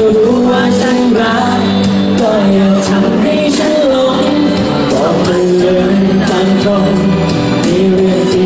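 A man singing a Thai pop song live into a microphone over music accompaniment, amplified through the stage PA.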